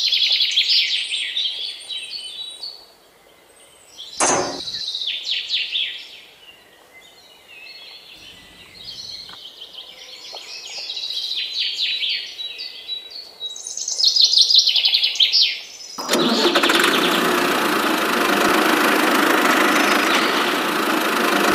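Birds chirping and singing over and over, with a single sharp knock about four seconds in. About sixteen seconds in, a steady loud rushing noise starts suddenly and runs on, drowning the birds.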